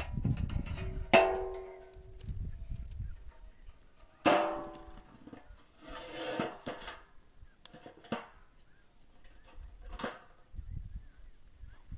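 Domed iron bread griddle (saj) clanging twice against the stones, each clang ringing on and dying away over about a second, followed by lighter knocks and a short scrape as it is handled.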